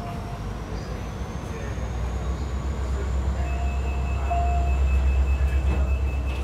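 Diesel locomotives of a passing train running by, heard through a train window: a low rumble and drone that builds about two seconds in and is loudest around five seconds in as the locomotives go past, with a faint steady high whine.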